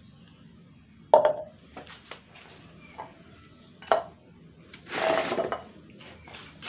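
Glass pot lid clattering onto a small slow cooker's ceramic crock: a sharp clink about a second in, another just before four seconds, then a longer grating rattle as the lid settles on the rim just after five seconds.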